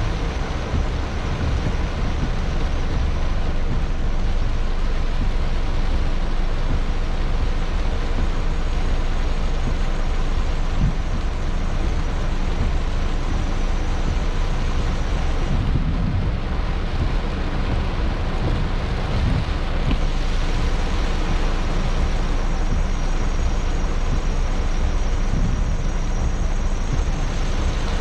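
Heavy rain falling on a car's roof and windshield, heard inside the cabin as a steady dense hiss, with a low vehicle rumble underneath.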